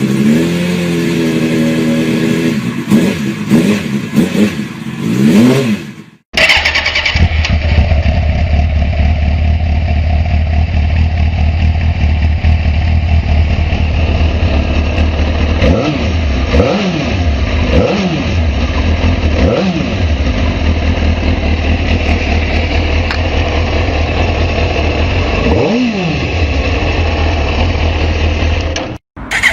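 Suzuki GSX-R sportbike inline-four engines on stock exhausts. In the first few seconds one is revved repeatedly, its pitch rising and falling. After a sudden cut, another idles steadily and is given five short throttle blips.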